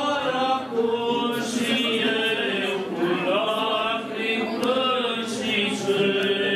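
Orthodox church chant sung by several voices, a continuous line of held notes that slide from pitch to pitch.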